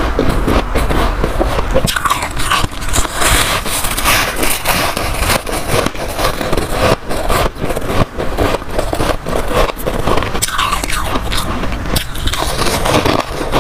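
Close-miked biting and chewing of mouthfuls of soft freezer frost: dense, continuous squeaky crunching as the packed frost is bitten and pressed between the teeth.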